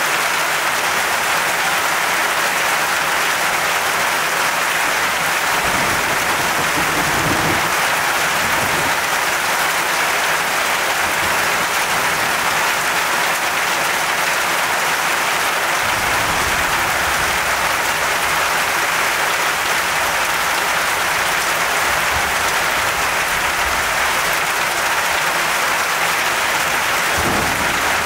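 Torrential rain from a sudden cloudburst pouring down, a dense, steady hiss, with low rumbles now and then.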